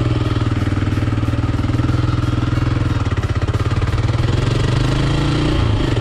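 Kawasaki KLR 650's single-cylinder four-stroke engine running steadily as the motorcycle rides along the road, its pitch dipping briefly near the end.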